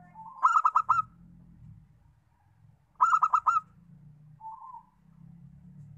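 Zebra dove (perkutut) cooing: two bursts of four or five quick, rolling notes about three seconds apart, followed by a softer single coo.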